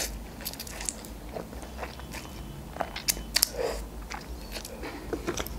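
Close-miked chewing of a mouthful of instant noodles, with a soft slurp as the forkful goes in at the start and scattered wet mouth clicks throughout.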